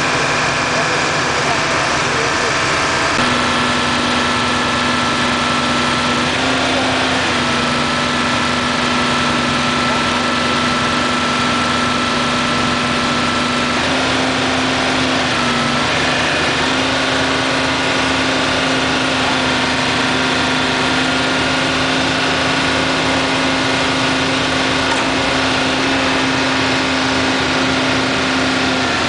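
Engine idling steadily, a low hum and a higher whine that step up or down in pitch a few times.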